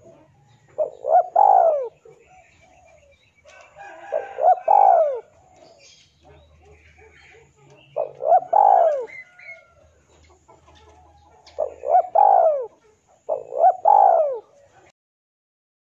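Male spotted dove cooing: five phrases of two or three coos each, a few seconds apart. It is the male's call to a rival.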